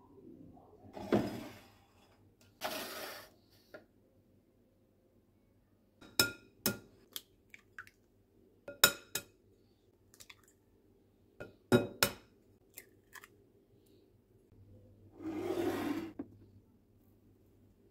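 Eggs tapped and cracked against the rim of a ceramic mixing bowl: short pairs of sharp cracks about six, nine and twelve seconds in. Between them, glass dishes clink and scrape against each other and the counter, with a longer scrape near the end.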